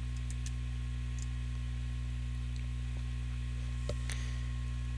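Steady electrical mains hum on the recording, with a couple of faint clicks about four seconds in.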